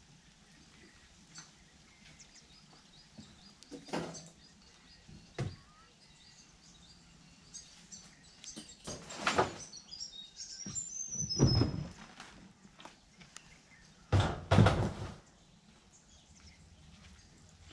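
A plastic kayak and gear being loaded onto a ute's tray: a series of separate thumps and knocks, the loudest a pair of thumps near the end. Birds chirp in between.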